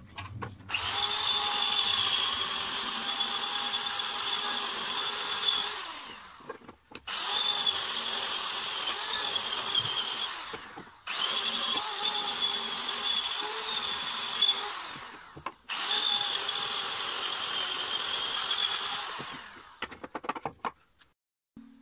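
Corded electric drill with a sanding disc, sanding wood. It runs in four stretches of about four to six seconds with brief stops between, a steady high motor whine over the rasp of the disc.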